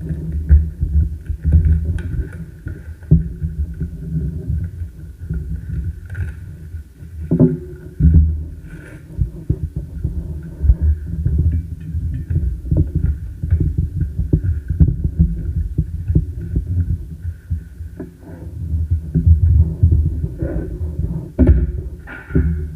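Handling noise from a cardboard trading-card box and its packs being opened close to the microphone: irregular low thumps and rumbles with a few sharper knocks, over a faint steady high hum.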